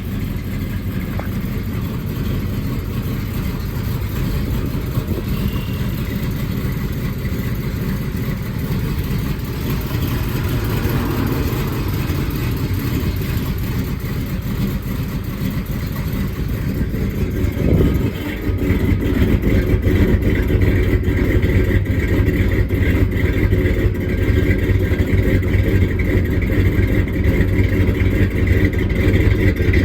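1979 Dodge Lil Red Express's 360 V8 running steadily just after a cold start, its exhaust note growing louder and deeper a little over halfway through.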